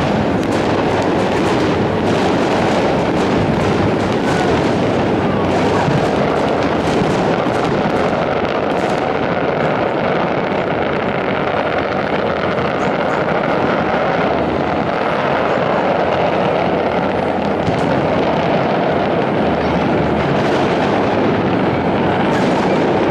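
New Year's fireworks going off all around, many bangs and crackles running together into a steady rumble. Sharper separate cracks stand out in the first few seconds and again near the end.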